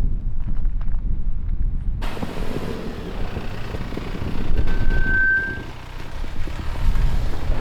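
Wind buffeting the microphone with a low rumble; about two seconds in it changes abruptly to the steady noise of a vehicle driving. A brief steady high tone sounds about five seconds in.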